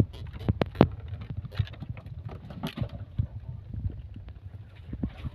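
Plastic crates knocking and clattering as live spiny lobsters are handled and dropped into a basket, with a quick run of sharp knocks about half a second in and scattered lighter clicks after, over a steady low rumble.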